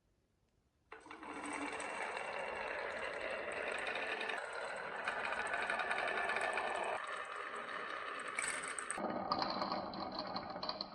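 Marbles rolling down a wooden HABA marble run: a continuous rolling rattle with fine clicks that starts suddenly about a second in and changes tone several times as the marbles pass onto different track sections.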